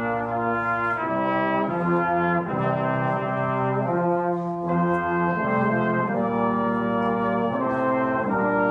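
Small brass ensemble of trumpets and trombones playing a slow piece in held chords that change every second or so.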